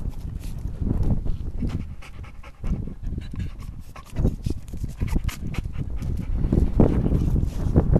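A dog panting in repeated uneven breaths.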